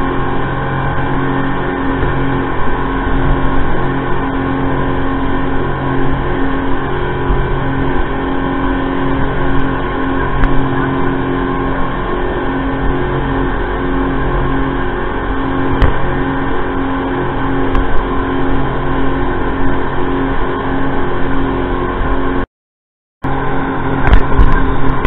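Speedboat engine running steadily at speed, its drone mixed with the rush of spray and water off the hull. The sound cuts out completely for under a second near the end.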